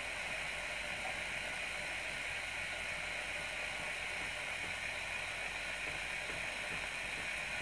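Steady static hiss from a Uniden radio scanner's speaker, the monitored phone channel open with nobody talking.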